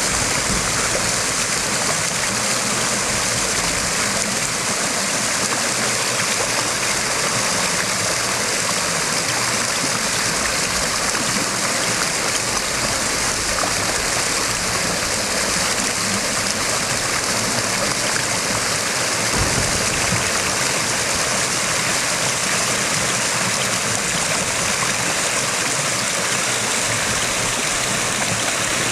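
Storm-swollen creek rushing steadily, a loud continuous noise of fast-flowing water.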